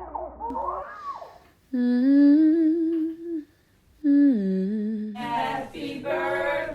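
A voice humming a slow tune: two long held notes with a slight wobble, the second gliding down, after a brief wavering vocal sound, and a fuller, brighter passage near the end.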